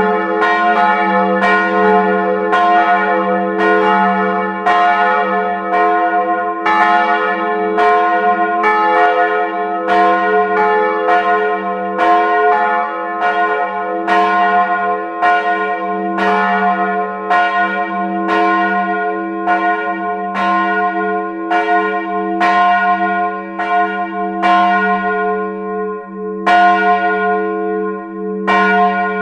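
Full peal of two swinging bronze church bells, heard close up inside the bell tower: the 1899 Ohlsson bell tuned to f' and the 1985 Karlsruhe bell tuned to a-flat'. Their clapper strikes alternate a little more than once a second, each ringing on into the next over a continuous hum.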